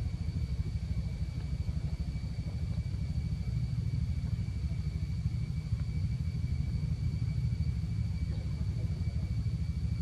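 Steady low rumble of wind buffeting the microphone, with a faint steady high whine above it.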